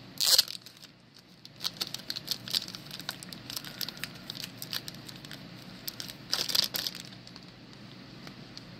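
Trading cards in plastic sleeves being handled: crinkling and rustling with scattered small clicks, and two louder rustles, one just after the start and one about six and a half seconds in.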